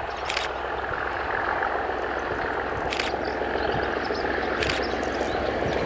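Diesel locomotive engine running as the train approaches, growing gradually louder, with a few short high clicks or chirps over it.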